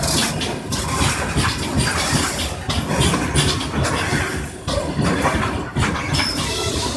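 Heavily loaded open-top freight wagons rolling past close by: a steady rumble of steel wheels on rail with dense, irregular clattering knocks from the bogies and rail joints.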